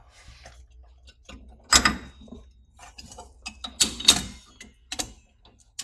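A few separate sharp knocks and clatters of workshop work on a car's underside, the loudest about two seconds in and a pair around four seconds in.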